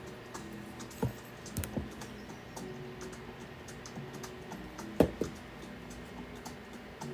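Light clicks and knocks from handling tools and parts during electronics soldering work, the loudest about five seconds in, over quiet background music.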